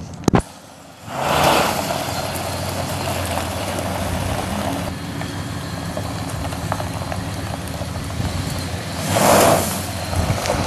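The 5.9-litre V8 gas engine of a 2001 Dodge Ram 1500 pickup running and revving as the truck turns on loose gravel, with gravel crunching under the tyres. The engine swells about a second in and again near the end. A sharp click comes right at the start.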